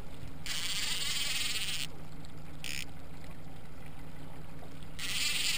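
Spinning reel's drag buzzing as a hooked fish pulls line off, in a long run of about a second and a half starting about half a second in, a short burst a little later, and another run near the end, over a steady low hum.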